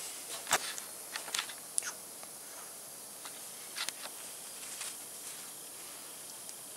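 Scattered light clicks and knocks from a gloved hand handling a freshly sanded stainless steel turbo flange, over a faint steady hiss.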